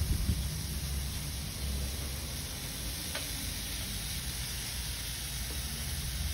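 Raw pork belly slices sizzling steadily on a hot grill pan over a portable tabletop stove, with a single light click of metal tongs about three seconds in.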